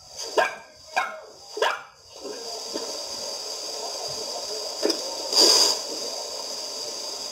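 A dog barking: three short, sharp yips in the first two seconds. A brief hissing noise follows about five and a half seconds in.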